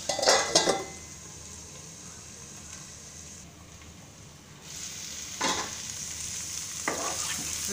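Chopped cabbage sizzling in oil in a pan, kept low under a steel lid while it steams. The metal lid clanks as it is set on at the start and again when it is lifted about five and a half seconds in, after which the sizzling is louder.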